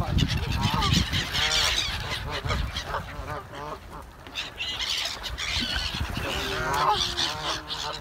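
A mixed flock of gulls and geese calling over water: many overlapping harsh cries and honks, lower calls mixed with high, thin ones.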